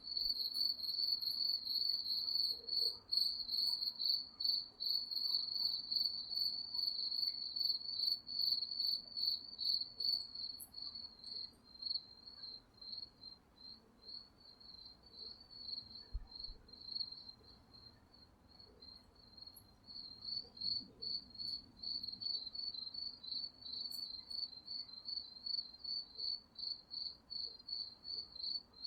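Crickets chirping: a high, steady pulsing trill that keeps going without a break, growing softer for several seconds in the middle and then louder again.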